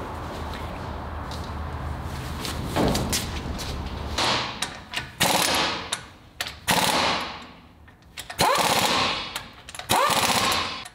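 Impact wrench hammering in about five short bursts of about a second each, starting about four seconds in. Each burst opens with a rising whine and rings out with an echo.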